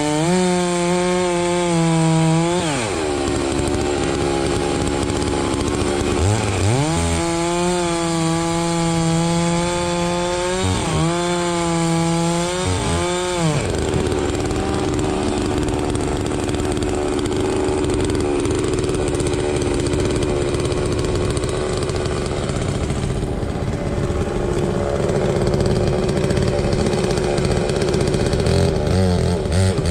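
Two-stroke Holzfforma chainsaw cutting wood at high revs. In the first half its pitch drops and recovers about four times as the chain bites and frees. After that it runs steadily, loaded in the cut, and the revs climb again right at the end.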